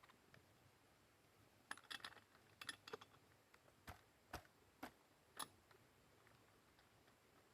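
Faint, irregular clicks and light taps of small hard objects being handled, bunched between about two and five and a half seconds in.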